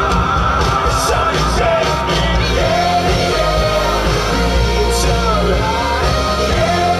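Song playing loudly: singing over a steady bass beat, in a pop-rock style.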